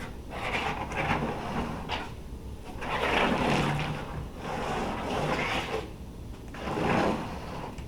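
Toy race car's plastic wheels rolling back and forth through wet paint on a large sheet of paper: a scraping roll that swells and fades in about four long strokes.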